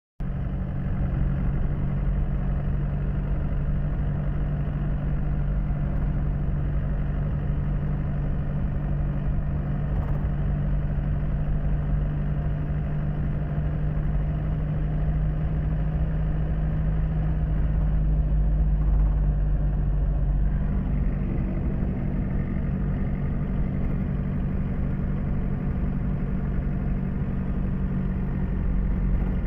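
A steady engine hum running at an even speed, its low drone stepping slightly in pitch about twenty seconds in.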